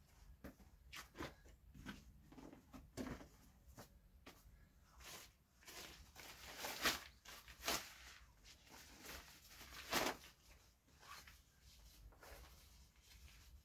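Hands handling packaging and gear: crinkling, rustling plastic with scattered clicks and knocks. The loudest crackles come about seven, eight and ten seconds in.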